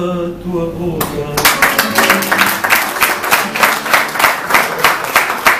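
A fado song's last sung note and guitar chords end about a second in, and applause breaks out, with loud claps about three a second.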